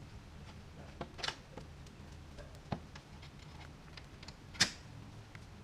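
Dump trailer tarp being handled: a few sharp clicks and knocks at irregular intervals, the loudest about four and a half seconds in, over a low steady hum.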